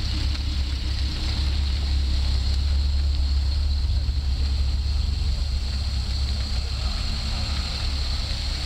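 Classic Opel coupé rolling past at walking pace, its engine a low, steady rumble.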